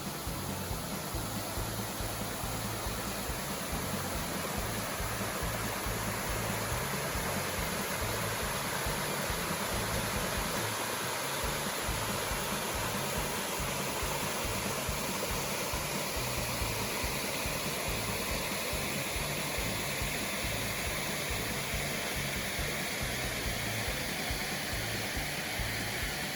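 Steady rush of creek water spilling over a small waterfall into a pool, an even, unbroken sound.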